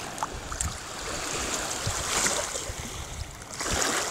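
Shallow sea water splashing and lapping around children's bodies and hands as they play in it, swelling louder twice, about two seconds in and near the end.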